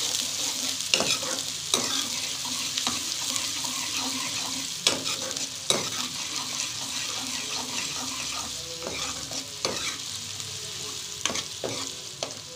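Chopped onions sizzling in hot oil in a metal kadhai, frying toward light brown, while a steel ladle stirs them and scrapes and clicks against the pan now and then.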